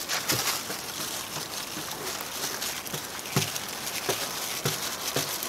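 Paintbrush working epoxy resin into fiberglass cloth: soft brushing with a few dull, irregular taps as the brush is dabbed onto the wet laminate, most of them in the second half.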